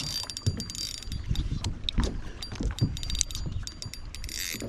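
Fishing reel and rod being worked against a hooked smallmouth bass: irregular mechanical clicks and ticks with low knocks and thumps, and a short rush of hiss near the end.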